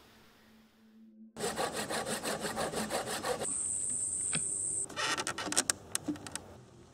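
Hand saw cutting wood in quick, even strokes, starting suddenly a little over a second in. It gives way to a steady high-pitched whine, then to a run of sharp clicks and scrapes near the end.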